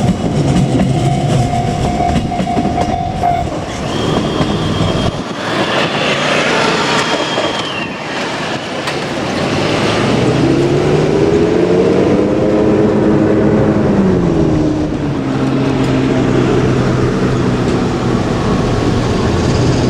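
JR Kyushu 817-series electric train running past at close range, its wheels clattering over the rails. About halfway through, the traction motors' whine rises in pitch, holds for a couple of seconds, then falls away.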